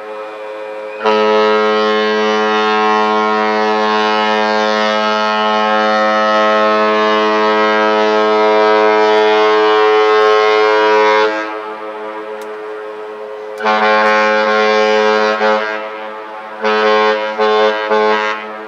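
Cruise ship Costa neoRomantica's horn sounding departure blasts: one long blast of about ten seconds, then a shorter blast of about two seconds, then a quick series of short blasts near the end.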